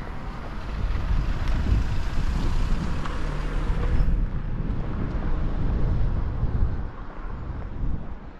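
Wind buffeting the microphone in an uneven low rumble, swelling about a second in and easing near the end.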